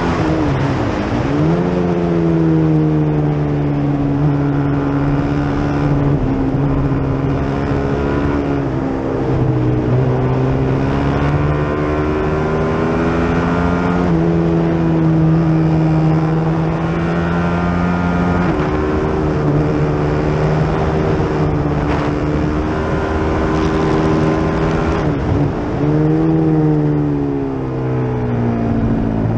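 Onboard sound of the FR450GP race motorcycle's single-cylinder engine at racing speed, with wind rush. The engine note climbs and steps through repeated gear changes. It falls away sharply and climbs again twice, near the start and about 25 seconds in, as the bike slows for a corner and accelerates out.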